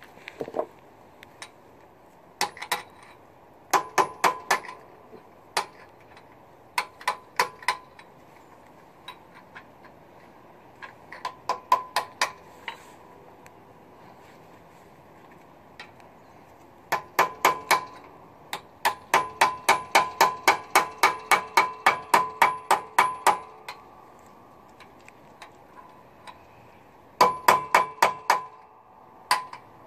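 Hammer blows on steel at a truck's rear wheel hub, tightening the outer spindle nut: runs of sharp ringing clinks at about four or five a second with pauses between, the longest run lasting about four seconds.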